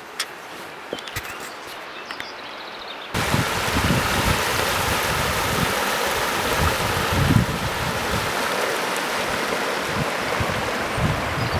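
A few light footsteps and rustles through vegetation. About three seconds in, the sound cuts suddenly to the steady rush of a shallow river running over rocks, with wind buffeting the microphone.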